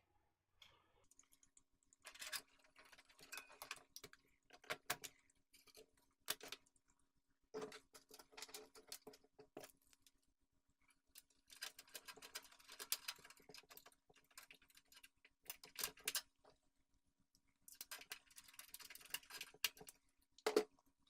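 Hands working on computer parts: bursts of small clicks, taps and rustling, with a few sharper clicks among them.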